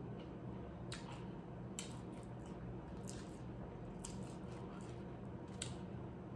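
Crunchy spicy nacho tortilla chips being chewed close to the microphone, with crisp crunches about once a second.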